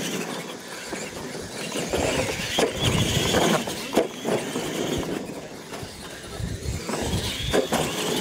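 Radio-controlled monster trucks racing down a dirt lane: a high whine from their motors, with irregular knocks and scrabbling from the tyres bouncing over the dirt.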